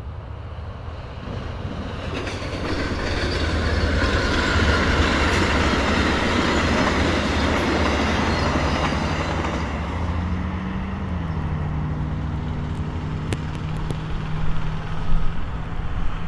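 VIA Rail F40PH-2D diesel locomotive and LRC passenger cars passing at speed: a rising rush of wheels on rail with clickety-clack, loudest a few seconds in, then easing, with a steady low hum that steps slightly down in pitch about two-thirds of the way through. Sharp crackles near the end come from a bent, unreliable microphone cable connector.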